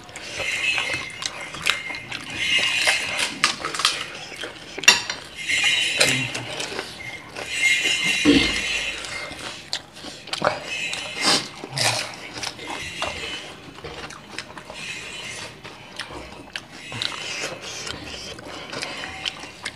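Two people eating fuchka (panipuri): crisp puri shells crunching as they are bitten and chewed, with slurps of tamarind water and clinks of ceramic bowls on the table, coming in irregular bursts with sharp clicks between.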